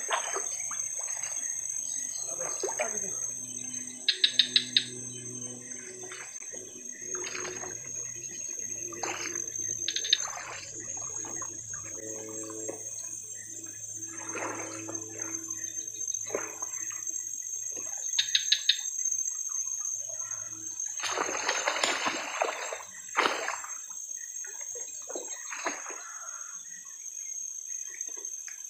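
Wading splashes through shallow swamp water over a steady high-pitched insect drone. Short bursts of rapid, loud clicking come twice, and there is a louder splashing stretch about three-quarters of the way through.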